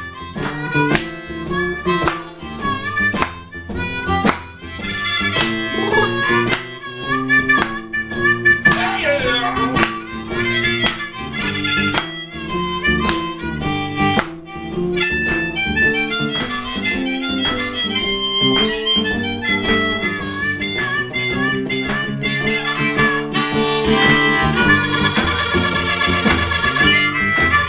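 Blues harmonica played close into a microphone, taking an instrumental break with some notes bent in pitch, over an acoustic guitar strummed in a steady rhythm.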